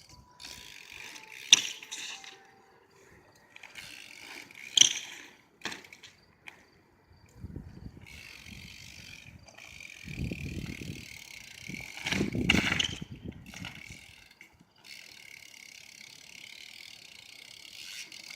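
BMX bike's rear hub ratcheting as the wheel freewheels, with a few sharp clicks and several heavier low thumps.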